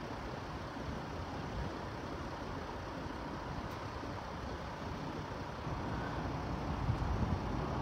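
Steady road-traffic noise with cars idling, and a low wind rumble on the microphone, growing a little louder about six seconds in.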